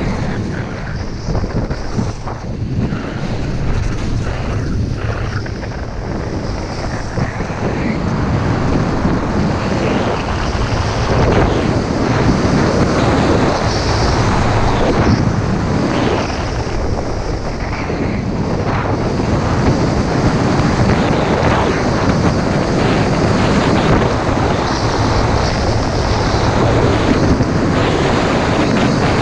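Rushing wind noise on the microphone of a body-worn camera, skiing downhill at speed, mixed with ski edges scraping over hard-packed, groomed snow through the turns. The noise is loud and steady, growing a little louder and rougher after the first several seconds.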